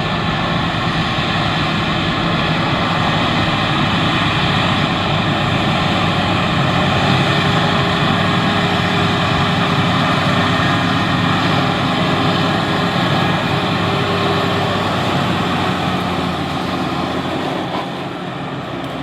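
Big high-horsepower farm tractor's diesel engine running steadily at work in a field, a continuous drone that eases off over the last couple of seconds.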